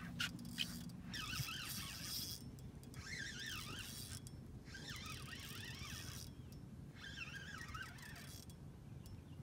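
Fishing reel being cranked in several short spells with brief pauses, its gears whining in a pitch that rises and falls with each turn of the handle as a fish is reeled in on a bent rod. There are a few sharp clicks in the first second.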